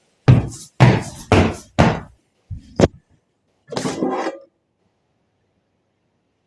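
A series of knocks: four loud strikes about half a second apart, then two lighter ones and a short noisy scrape or rustle.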